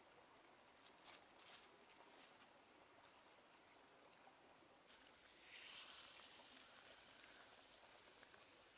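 Near silence: faint cooking sounds, with two soft clicks about a second in and a brief hiss a little past the middle.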